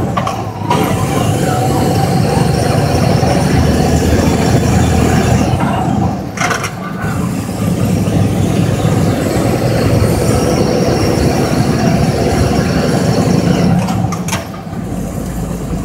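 Mack truck's diesel engine running loud while driving, heard from inside the cab, its sound dipping briefly three times: just after the start, about six seconds in and near the end.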